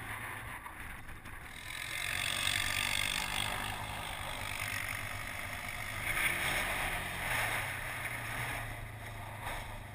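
ATV engine running steadily as the quad is ridden, mixed with the rush of wind and tyre noise.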